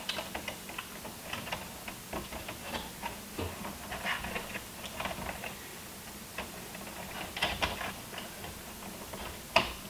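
Irregular small clicks and scrapes of 12-gauge wire being pushed in behind other wires in a breaker panel, with one sharper click near the end.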